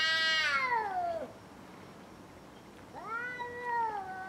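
Domestic cat meowing: a long drawn-out meow that falls in pitch and trails off about a second in, then after a short pause a second meow that rises and falls near the end.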